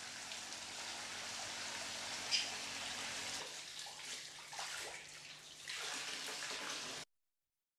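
Liquid splashing and pouring as whey and fresh curd run from a stainless-steel cheese vat and are scooped with a plastic jug, with a light clink about two and a half seconds in. The sound cuts off abruptly near the end.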